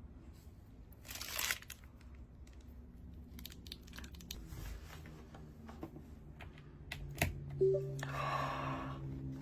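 Unboxing sounds: plastic and paper packaging rustling and crinkling, with scattered small clicks and taps as the mechanical keyboard and its accessories are handled. A sharp click and a louder rustle come near the end, over a faint low hum.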